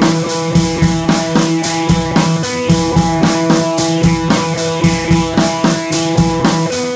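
Background music: a drum kit keeps a steady beat under held instrument notes.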